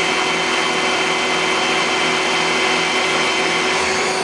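Citizen L32VII CNC Swiss lathe's sub spindle running steadily at 5,000 RPM, a constant machine whine and hiss with a low pulsing hum that drops away about four seconds in.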